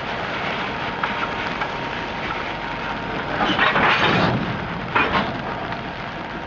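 Freight cars of a slow-moving train rolling past, wheels grinding and clattering on the rails, with louder clanks and knocks about three and a half seconds in and again about a second later. A faint thin whine runs through the first half.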